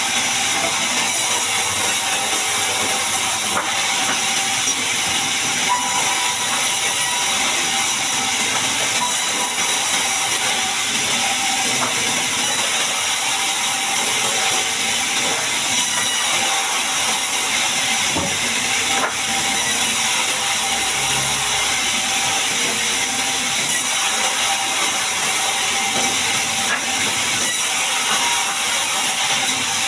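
Log bandsaw mill sawing through a large mahogany log: a steady, high-pitched hiss and whine of the blade in the wood.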